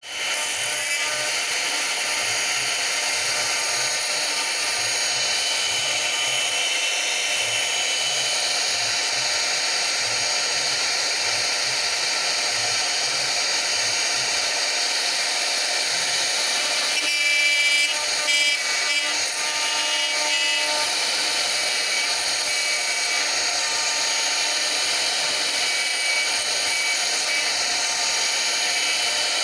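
CNC machine running: a steady high-pitched whine with even cutting noise, joined about two-thirds of the way through by a few seconds of shifting, stepping tones.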